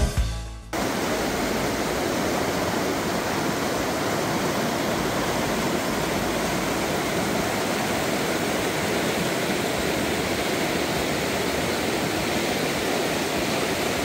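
Fast-flowing Baspa River rushing steadily, a continuous even noise of moving water, beginning as music cuts off about a second in.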